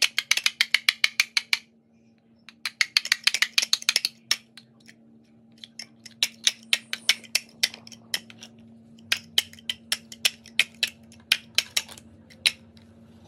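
Large plastic toddler building blocks clicking and clacking together as they are handled and pressed onto a tower, in quick runs of clicks for the first few seconds and then scattered single clicks. A faint steady hum sits underneath.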